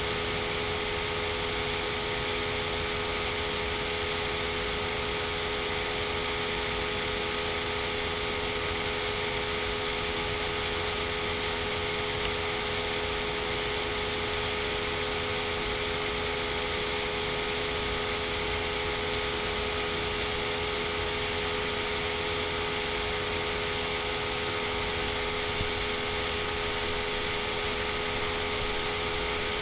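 Steady background hiss with a faint constant hum running through it: room tone and recording noise with no events.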